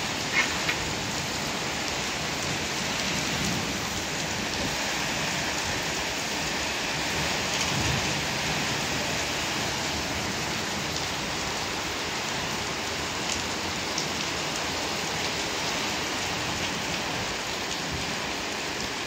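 Heavy downpour: a steady, dense hiss of rain pouring onto pavement and parked cars. Two sharp ticks sound about half a second in.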